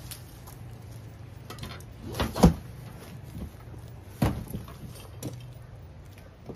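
A few dull thumps and knocks from handling a container of dry leaves for composting, the loudest about two and a half seconds in and another a little past four seconds, over a low steady hum.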